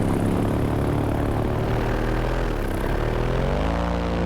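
Vittorazi Moster 185 single-cylinder two-stroke paramotor engine and propeller running in flight. The engine revs dip about two and a half seconds in, then climb back up to a higher pitch near the end.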